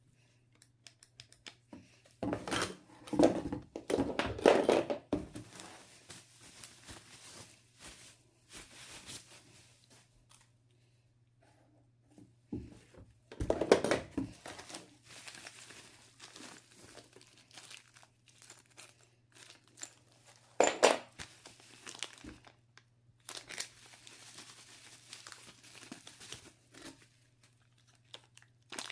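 Plastic and paper packaging being handled and torn open during an unboxing: irregular crinkling and tearing, loudest about three to five seconds in and again about fourteen seconds in. A faint steady low hum runs underneath.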